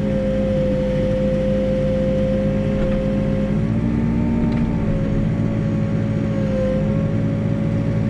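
New Holland B95 backhoe loader's diesel engine and hydraulics running steadily under digging load, with a steady high whine that sags slightly in pitch a couple of times as the boom works.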